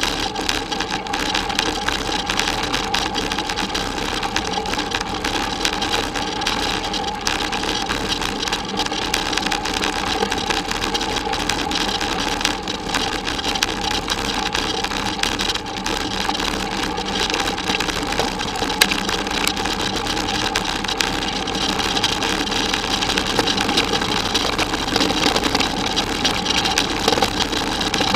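Bicycle rolling along a dirt forest track: a steady mechanical whirr with fine rattling from the ride.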